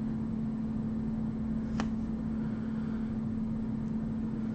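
A steady low hum over faint rumbling background noise, with a single faint click about two seconds in.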